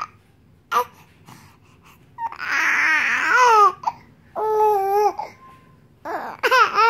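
Three-month-old baby girl cooing and babbling in separate bursts: a short coo, then a longer, breathier vocalization about two and a half seconds in, a steady held coo around the middle, and more cooing near the end.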